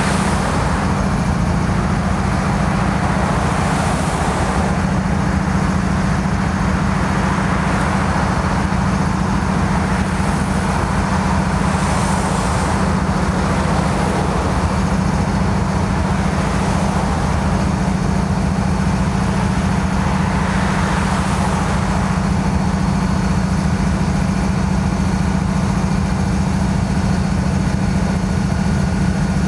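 Stationary diesel-electric freight locomotives, a GE ES44C4 in the lead, idling with a steady low drone. Cars pass on the road in front several times, adding brief swells of tyre and engine noise, one about halfway through.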